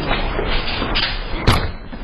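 A single loud bang about a second and a half in, over a steady noisy background.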